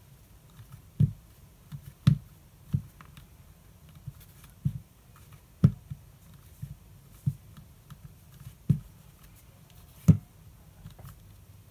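Irregular soft knocks and handling noise as a rubber scale-model tyre is turned and pressed onto its wheel by hand, about one knock a second with a few louder ones.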